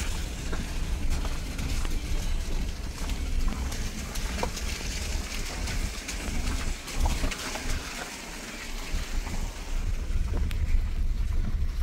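Moving car with wind buffeting the microphone: an uneven low rumble under a steady hiss of road and air noise.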